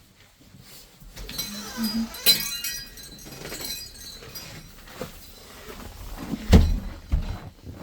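Dishes and tableware clinking at a meal, with a dull knock about six and a half seconds in.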